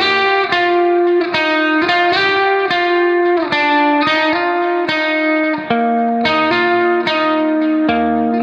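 Background music: a guitar with effects playing a melody in plucked notes, about two notes a second.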